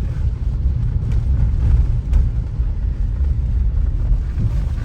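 Steady low rumble of a moving car, its road and engine noise, with a couple of faint clicks.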